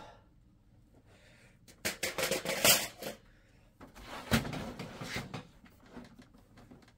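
A beige steel-and-plastic PC tower and its removed side panel being handled: a burst of clattering clicks and rattles about two seconds in, then a sharp knock and more rattling a second or so later as the case is turned and set down.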